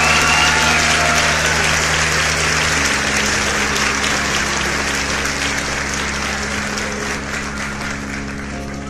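A crowd applauding: steady, dense clapping that eases a little toward the end, over a low steady hum.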